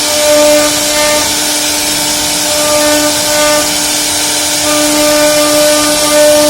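CNC router spindle cutting into a wooden door. It gives a steady whine over a dense hiss of cutting, with the level swelling slightly now and then.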